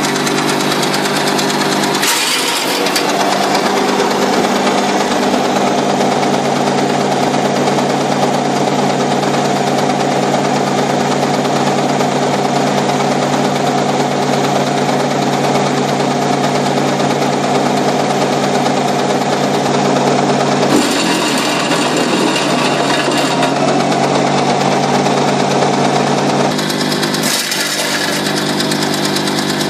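Tractor-PTO wood chipper driven by an electric tractor's motor, running steadily under load with a loud hum and whir. Pine branches are fed in and chipped near the end.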